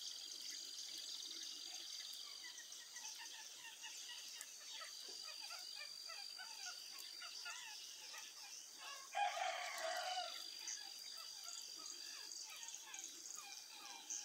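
Many birds chirping over a steady high-pitched tone. About nine seconds in, a rooster crows once; it is the loudest sound.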